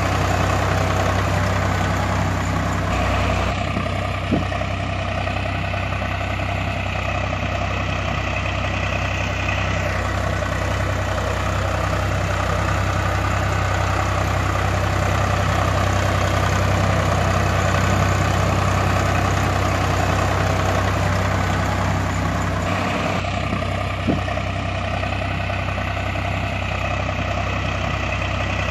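Tractor engine idling steadily with a regular low chug. Its upper tone changes abruptly a few times.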